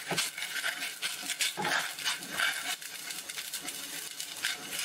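Pot of water at a rolling boil on a gas burner, with chopsticks tapping against the stainless steel pot as chicken breast is lowered in. A short pitched sound about two seconds in.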